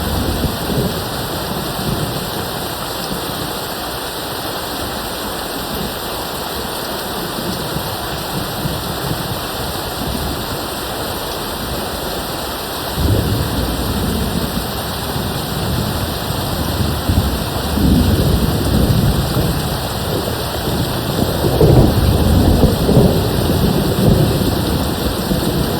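Steady rain with rolling thunder. About halfway in, a low rumble of thunder starts and rolls on, growing louder toward the end.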